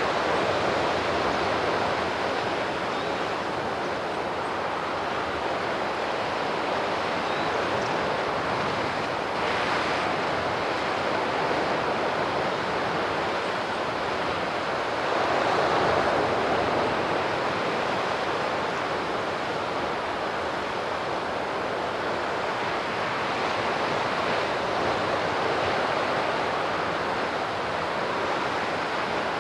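Sea surf washing onto the shore: a steady rush that swells and eases with the waves, loudest about halfway through.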